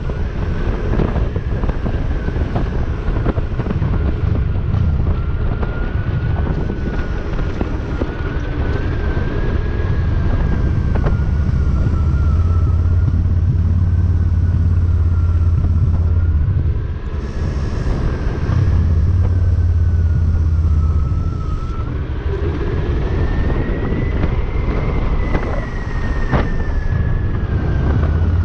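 Honda Shadow cruiser's V-twin engine running on the move, with wind buffeting the camera microphone. A thin whine slowly drifts up and down in pitch over the engine's low rumble.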